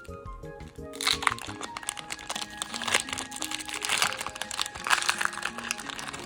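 Foil Pokémon booster pack wrapper crinkling and crackling as it is torn open by hand, starting about a second in, over background music with a simple melody.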